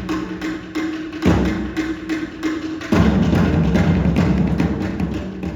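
Background pop music in an instrumental passage, with a steady beat and held chords; it grows fuller about three seconds in.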